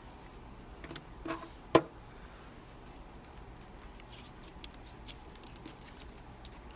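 Small metallic clicks and clinks of a lock and metal tools being handled. The sharpest click comes near the two-second mark, with a scatter of lighter ticks later on.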